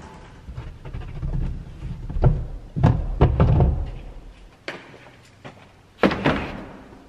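Equipment cases being loaded into a car's boot: a run of thuds and knocks as they are set down and shifted on the boot floor, with a low rumble of handling in the middle and a sharper, louder knock near the end.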